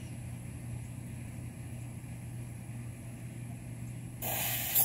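A steady low hum, then about four seconds in a sudden loud hiss as water reaches the new Orbit pop-up sprinkler head and it starts spraying.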